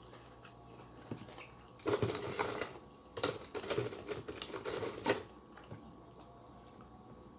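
Crinkly, crackling handling noise in two bursts, a short one about two seconds in and a longer one from about three to five seconds in, as food and its packaging are handled at the table during a meal.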